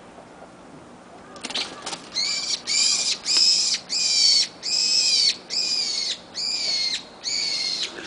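Brown-eared bulbul screaming in distress as a cat seizes it: a rapid run of about ten harsh, loud calls, starting about a second and a half in.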